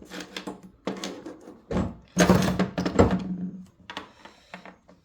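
Hands rummaging through loose spare parts: a run of clattering knocks, loudest about two to three seconds in, then a few lighter clicks near the end.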